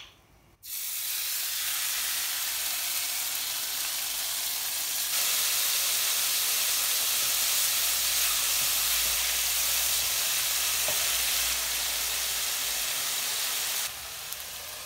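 Pieces of marinated meat searing in a hot non-stick frying pan: a steady frying sizzle that starts suddenly about half a second in as the meat goes into the pan, gets louder about five seconds in, and drops a little near the end.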